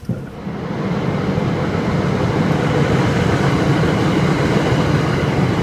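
MBTA commuter rail train passing at speed: a steady rumble of wheels on rail that builds over the first second or so and then holds.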